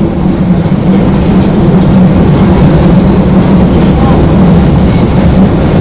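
Osaka Municipal Subway 22 series train running at speed through a tunnel: a steady, loud low rumble of wheels and running gear. It builds up over about the first second, then holds.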